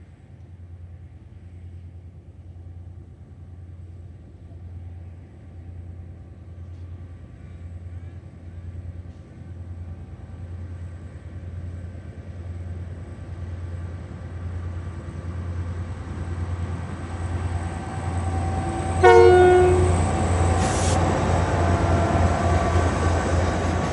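Two ex-Queensland Railways 2300 class diesel locomotives hauling a loaded gypsum train, their engines' low drone growing steadily louder as they approach. A short horn blast sounds about 19 seconds in, followed by the quick rhythmic clatter of the locomotives' and wagons' wheels as they pass close by.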